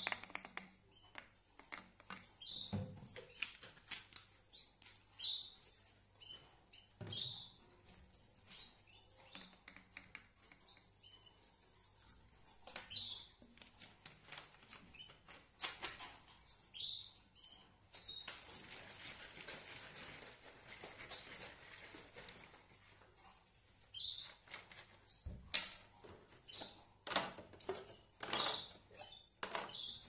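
Pet canaries giving short high chirps now and then, among light clicks and knocks. A few seconds of hiss in the middle and a sharp thump a few seconds before the end.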